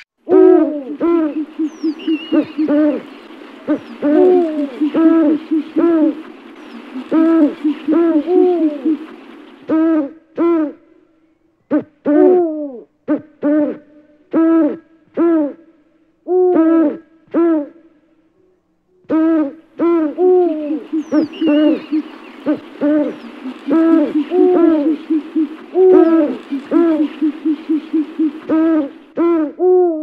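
Owl hooting: many short, low hoots in quick runs, sparser and more spaced in the middle stretch.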